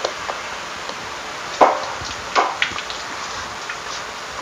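Silicone spatula folding thick pumpkin cake batter in a stainless steel mixing bowl: soft wet scraping with a few sharp knocks against the bowl, the two loudest about one and a half and two and a half seconds in, over a steady hiss.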